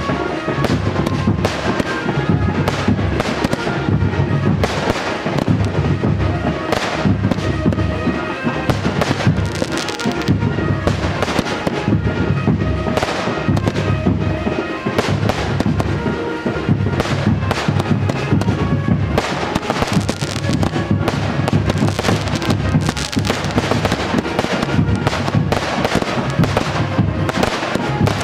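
Fireworks going off in a dense, irregular run of sharp cracks and bangs, over loud music playing throughout.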